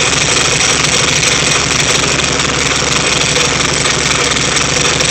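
Freshly rebuilt VW Type 3 1600 cc single-port air-cooled flat-four running steadily at idle on its first start.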